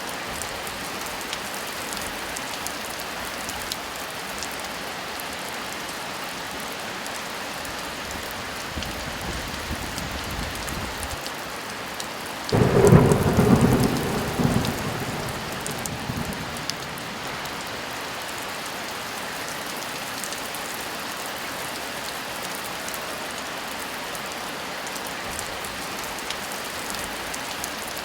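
Steady heavy rain throughout. A faint low rumble swells from about a third of the way in, then a sudden loud clap of thunder about halfway through rumbles away over the next few seconds.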